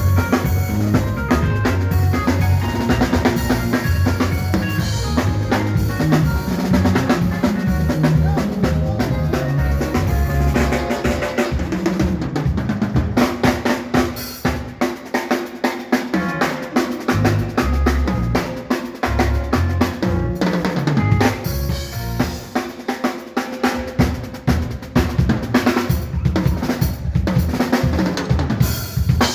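A band playing a makossa groove: a drum kit with snare, rimshots and bass drum over a moving bass line and held pitched notes. The low bass drops out briefly twice, around the middle and later on, while the drums carry on.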